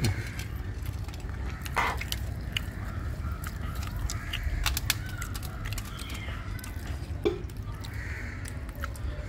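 Crows cawing a few times in the background, with scattered sharp clicks and a steady low hum underneath.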